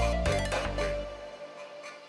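Background electronic music with a steady beat; the bass drops out about one and a half seconds in.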